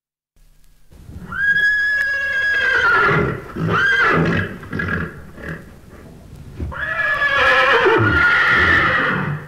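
Horse whinnying: a long, wavering neigh, a short one, then another long neigh that falls in pitch near the end, over low thudding underneath.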